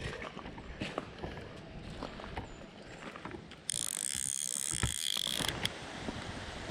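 Fly reel's click-and-pawl drag buzzing for about two seconds as line is pulled off, starting and stopping abruptly, after a few seconds of faint knocks and steps.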